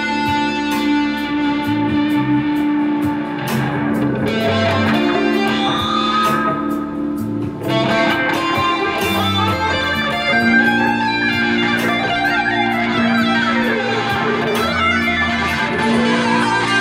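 Stratocaster-style electric guitar played through a Laney combo amp: melodic lead lines of picked single notes mixed with longer held notes.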